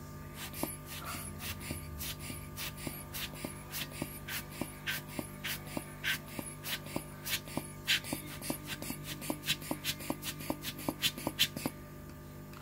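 A rapid run of short scratching or scraping strokes, about three to four a second, over a steady low hum; it stops abruptly near the end.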